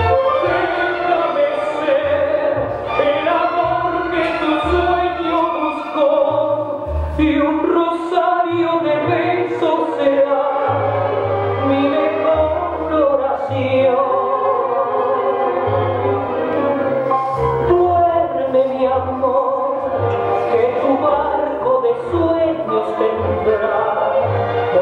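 Recorded tango music with a singer over an orchestra, the bass notes coming in short regular pulses.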